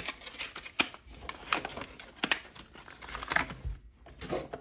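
Clear plastic packaging rustling and crinkling as it is handled, with irregular light clicks and taps.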